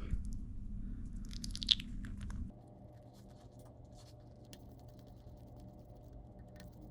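Small clicks and scrapes of the Hope X2 brake lever's reservoir top cap and its screws being handled and refitted, bunched together about a second and a half in, then a few faint scattered ticks.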